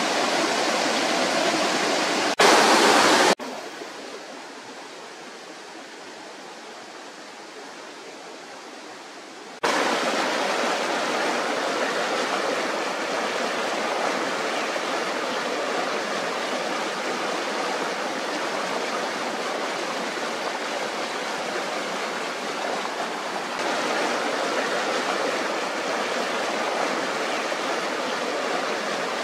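Water of a rocky forest stream rushing over rocks and small cascades, a steady noise. About two and a half seconds in it is briefly louder, then drops to a quieter flow for about six seconds before the louder rush comes back.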